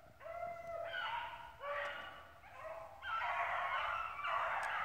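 A pack of rabbit hounds baying on a rabbit's trail: long drawn-out bawls, several dogs at once, getting louder about three seconds in as the pack comes closer.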